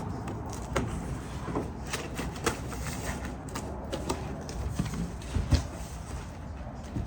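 A shipping box being opened by hand: irregular knocks, clicks and scrapes of the packaging being handled, with a louder thump about five and a half seconds in.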